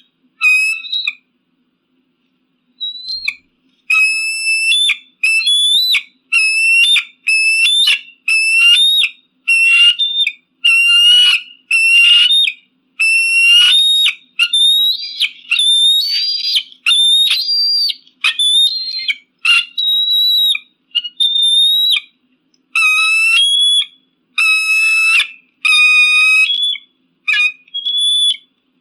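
Eagle calling: a long series of short, high, whistled calls, about one a second, starting a few seconds in.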